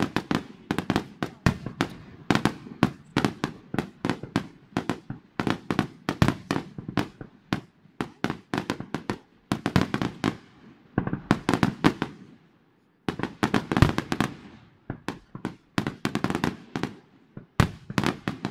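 Fireworks display: a rapid barrage of aerial shells bursting, many sharp bangs a second, breaking off for a moment about twelve seconds in before starting again.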